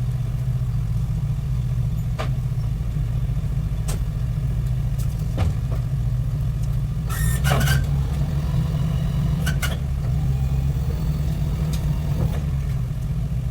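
Truck engine idling with a steady low drone, with scattered light clicks and knocks over it and a brief louder clatter about seven seconds in.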